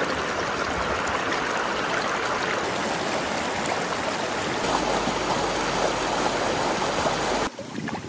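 Mountain stream rushing and splashing over rocks in shallow rapids, a steady close rush of water that drops away suddenly near the end.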